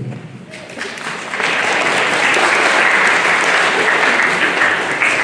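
Audience applauding. The clapping starts about a second in, builds quickly and holds steady.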